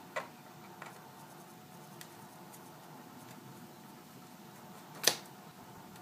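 Small screwdriver working the screws out of a MacBook Pro's aluminium base panel: a few faint metallic ticks, then one louder click about five seconds in.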